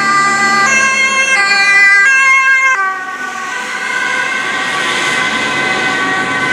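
Dutch ambulance's two-tone siren on an emergency run, switching between high and low notes about every 0.7 seconds. About three seconds in, the pitch drops suddenly as the ambulance passes, and the siren then continues at a steadier tone over the rush of the vehicle and traffic moving away.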